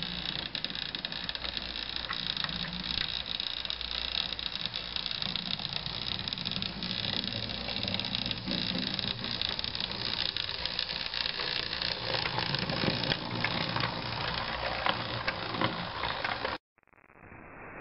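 Model tank locomotive running along the track: a steady mechanical whir and rattle with many small clicks from the wheels on the rails. It cuts off suddenly near the end.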